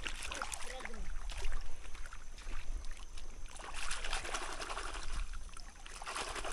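Shallow seawater splashing and trickling over wet sand as feet and hands move through it, with many small splashes and a steady low rumble underneath.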